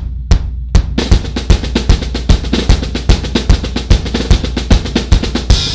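Music: a drum intro, a few spaced hits and then a fast, steady drum beat, with a cymbal crash near the end.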